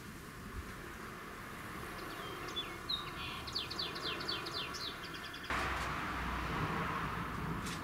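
A songbird sings a short trill of quick descending notes over a faint steady hiss. About two-thirds of the way through, a louder steady rushing noise with a low rumble cuts in suddenly.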